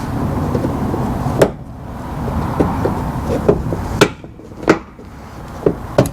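A few sharp plastic clicks and knocks as push-in trim clips on the front wheel-well liner are pried out, over a steady background hiss.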